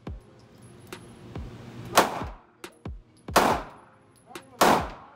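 Handgun shots in an indoor range: three loud shots a little over a second apart, each ringing briefly off the walls, with fainter shots from other lanes in between.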